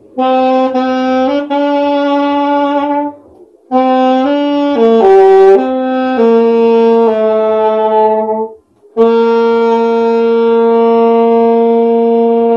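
Solo saxophone playing a slow melody in three phrases, with short breath pauses between them. The last phrase is one long held note.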